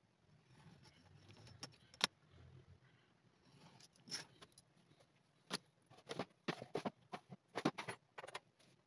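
A craft knife cuts leather along a steel ruler on a cutting mat. This is followed, in the second half, by a run of light clicks and clinks as the metal ruler, the knife and the leather pieces are moved and set down on the mat.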